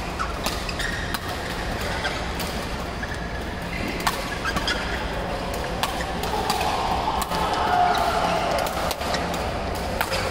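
Badminton play in a large hall: irregular sharp clicks of rackets striking shuttlecocks on this and nearby courts over a steady low hum, with a louder drawn-out sound near eight seconds in.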